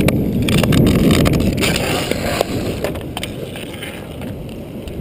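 Inline skate wheels rolling over rough asphalt, a steady rumble mixed with wind on the microphone, with a few sharp clicks of sticks and wheels on the pavement; the rumble eases off in the second half.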